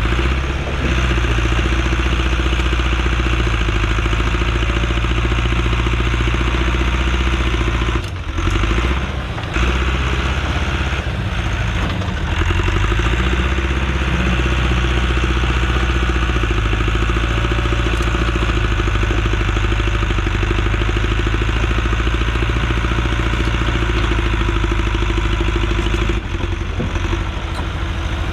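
Allis-Chalmers 655 track loader's engine running steadily at working throttle, with a few brief dips and breaks around eight to twelve seconds in and a drop near the end.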